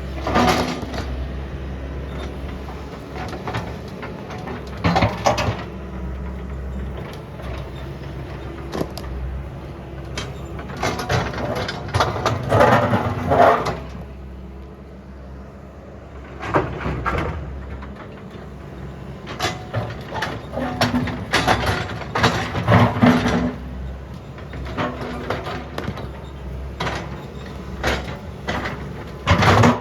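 Compact excavator engine running steadily under irregular clanks, bangs and scraping of metal as the machine works.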